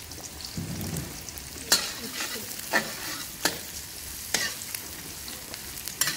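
Chopped shallots sizzling in oil in an aluminium wok, stirred with a metal spatula that clinks sharply against the pan several times.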